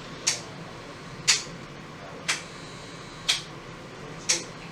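Steady, even ticking, one short sharp tick about every second, over a faint low hum.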